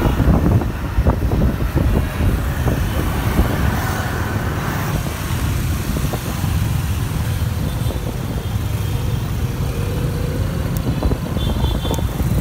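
Riding pillion on a motor scooter in dense city traffic: a steady low rumble of the scooter and wind, with surrounding motorbikes and cars going by.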